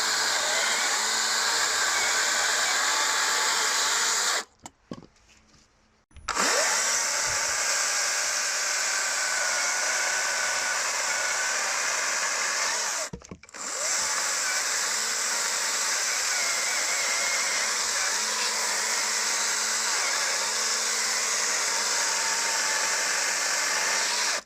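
Hychika CS40B 36-volt brushless cordless chainsaw running steadily while cutting through wood. The motor stops twice: for over a second about four and a half seconds in, and briefly around thirteen seconds in. Each time it starts again at once.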